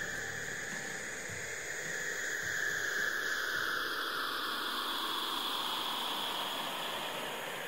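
A wind-like whooshing hiss whose tone slowly sweeps downward, swelling a few seconds in and easing off near the end.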